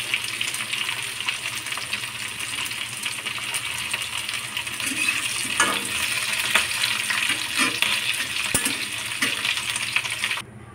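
Chopped capsicum and onion sizzling as they stir-fry in a wok, a steady frying hiss. From about halfway through, the spatula scrapes and clicks against the pan as the vegetables are tossed. The sizzle cuts off suddenly just before the end.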